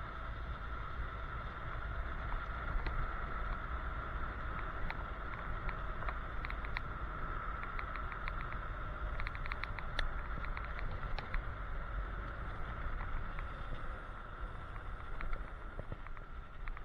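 Electric scooter riding fast down a paved road: wind rumbling on the microphone over tyre noise, with a steady high whine throughout. Scattered light clicks and rattles come through, thickest from about six to eleven seconds in.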